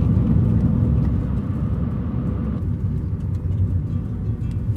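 Steady road and engine rumble of a car driving, heard from inside the cabin; the higher part of the noise drops away about halfway through.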